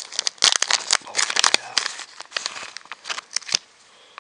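Plastic bait package crinkling and rustling in the hands as it is opened and a soft-plastic creature bait is pulled out, in quick irregular crackles that stop a little before the end.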